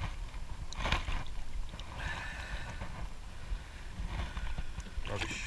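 Shallow seawater sloshing and splashing around a long-handled sand scoop as a crushed aluminium beer can is lifted out, with a couple of sharper splashes and a steady low rumble underneath.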